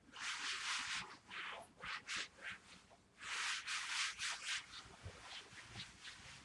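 Hand wiping across a laminate floor in rubbing strokes, two long ones and several shorter ones.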